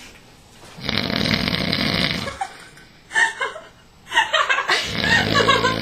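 A man snoring loudly while asleep: a long, rough rasping snore about a second in, and another, more buzzing one near the end.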